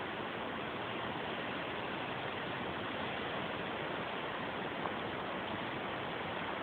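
Steady, even hiss of a storm outside, rain and wind, with one faint click about five seconds in.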